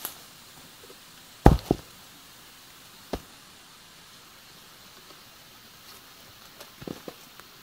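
A few sharp knocks: a loud double knock about a second and a half in, a single knock about a second and a half later, and a few lighter taps near the end.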